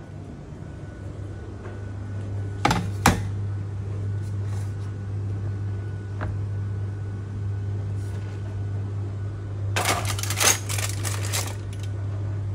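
Metal baking tray and cookware being handled over a steady low hum: two sharp clinks about three seconds in, then a longer burst of clattering near the end as the tray is set down on the stovetop.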